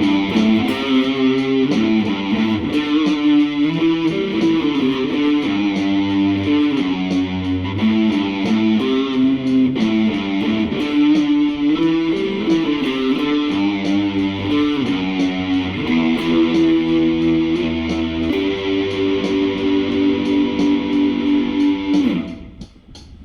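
Epiphone Les Paul Studio LT electric guitar being played, a continuous run of changing notes, stopping about a second before the end.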